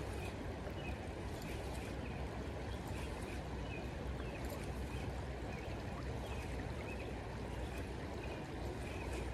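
Creek water flowing steadily over riffles.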